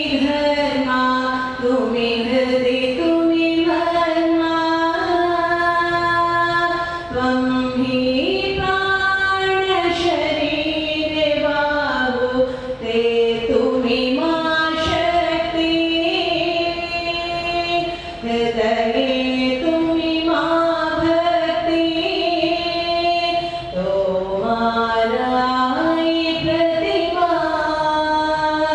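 A woman's voice singing a slow melody in long held notes that step up and down in pitch.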